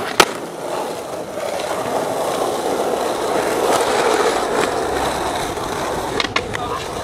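Skateboard landing a flip trick with a sharp clack just after the start, then its wheels rolling steadily on asphalt. A few quick clicks of the board near the end.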